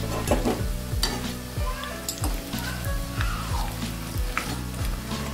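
Hot oil sizzling in a wok as batter-fried cauliflower pakoras are lifted out on a wire skimmer, with a few short metallic clicks. Background music with a steady low beat runs underneath.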